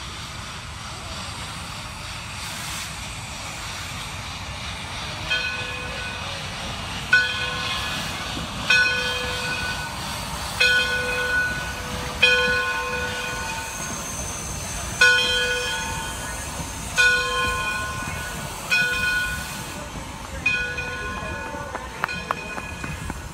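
Steam locomotive's bell ringing, one stroke about every two seconds, starting about five seconds in, over steady train noise.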